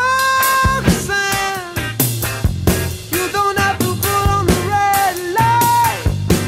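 Background music: an up-tempo rock song with drums and a held, sliding lead melody.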